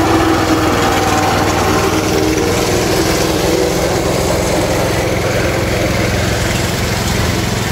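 Small engine driving a sugarcane juice press, running steadily.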